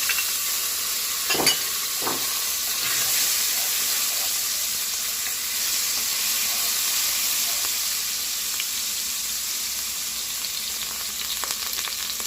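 Minced garlic sizzling steadily in hot cooking oil as it is sautéed and stirred, with two brief knocks near the start, about half a second apart.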